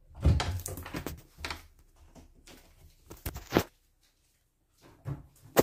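Rustling and scraping of a phone being handled and moved close to its microphone, with a few sharp clicks near the end.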